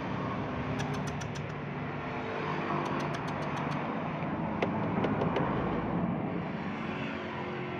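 A motor vehicle passing: a steady engine and road hum that swells to a peak about five seconds in and then fades. Three short runs of quick, sharp clicks come about one, three and five seconds in.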